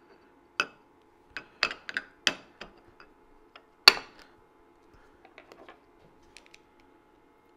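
Steel cover plate being set down and shifted into place on a machinist's vise: a string of sharp metal clinks and knocks, the loudest about four seconds in, followed by a few light ticks.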